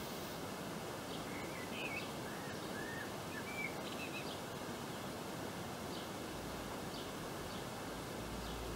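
Steady outdoor background hiss with a few short bird chirps and calls, mostly in the first half.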